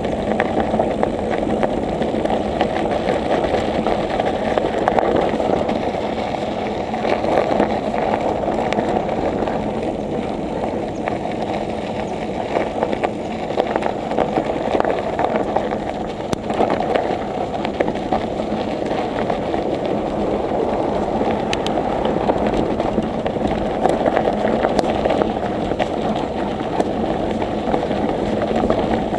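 Steady rushing noise of a moving bicycle ride, wind and tyre noise on a camera carried along, unbroken throughout.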